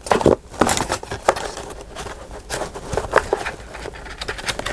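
Paper craft pieces being handled and sorted on a desk: an irregular run of crisp rustles, taps and clicks.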